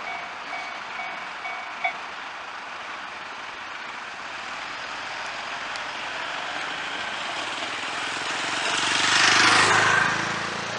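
A Japanese level-crossing warning bell rings in rapid repeated strokes and cuts off about two seconds in. A road vehicle then approaches over the crossing, passes loudest near the end and fades away.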